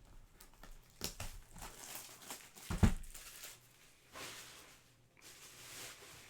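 Trading-card box and pack wrappers being torn open and crinkled, in short irregular crackling bursts, with a dull thump a little under three seconds in.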